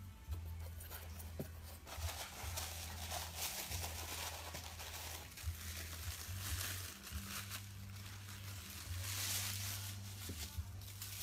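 White packing wrap crinkling and tearing as a small diecast model part is unwrapped by hand, in two stretches of rustling, about two seconds in and again near the end. A low hum runs on and off underneath.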